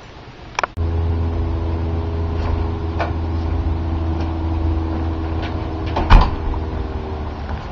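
A door shutting with a single loud thud about six seconds in, over a steady low hum that starts suddenly about a second in, with a light click just before it.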